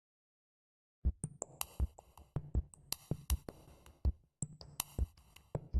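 Sparse electronic beat of drum-machine hits and short high synth blips, starting about a second in after dead silence.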